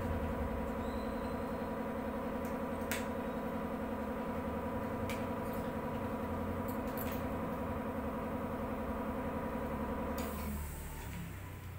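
Dental air compressor of the noisy, non-silent type running with a steady drone, then shutting off about ten and a half seconds in. A few light clicks sound over it.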